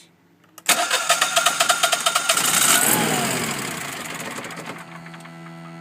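Generac 10 kW propane standby generator cranking on its starter with a rapid, even chugging for about two seconds, then winding down and settling near the end into a steady buzzing. The engine fails to start, the fault behind the controller's overcrank message.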